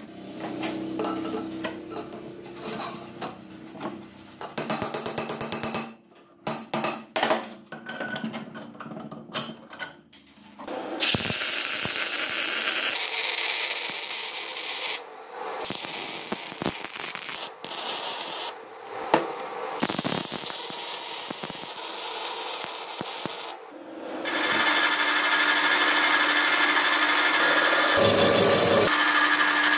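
Metal parts clinking and tapping on a steel workbench, then a MIG welder crackling in several bursts with short pauses. From a little after two-thirds of the way in, a metal lathe runs steadily with a held hum as its cutting tool turns a metal spacer.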